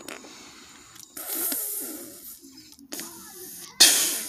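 A person making breathy hissing and puffing sound effects with the mouth. A long hiss starts about a second in, and a short, loud burst of hiss comes near the end.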